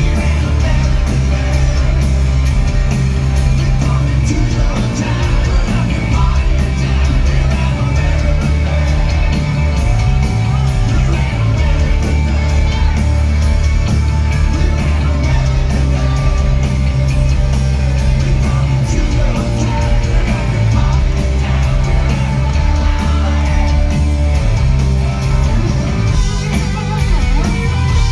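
Loud live hard-rock band playing: electric guitars, bass and drums with a singer's voice, heard from among the crowd.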